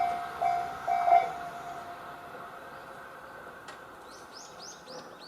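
Railway level-crossing alarm with the JR standard electronic bell sound, ringing about two strokes a second for its last few strokes and stopping about a second in as the train clears the crossing. Near the end, a bird gives a run of quick high chirps.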